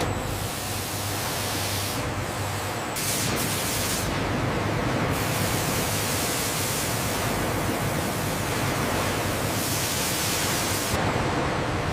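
Steady rushing noise of factory processing machinery, with no clear rhythm or tone; its high hiss drops away and comes back a few times.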